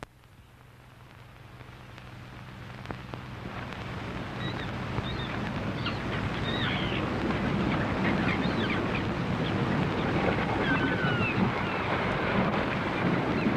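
Seaside harbour ambience fading in over the first few seconds: a steady wash of surf and wind, with faint, short, high cries scattered through it.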